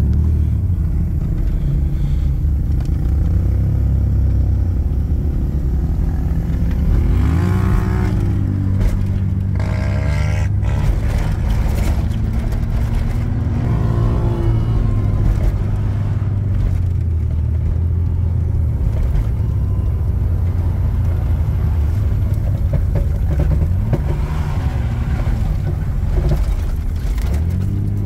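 Off-road vehicle engine running steadily under way, the revs rising and falling briefly a few times.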